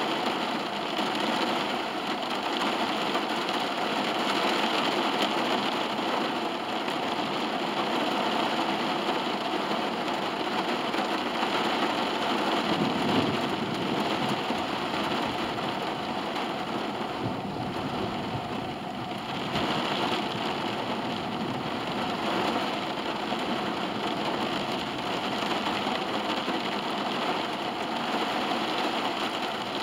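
Rain falling on a car's roof and windows, heard from inside the cabin: a steady, even hiss.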